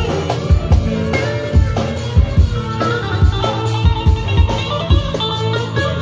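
Live Turkish band playing an instrumental passage: a plucked electric bağlama (saz) carries the melody over a steady rhythm of darbuka and tambourine hits.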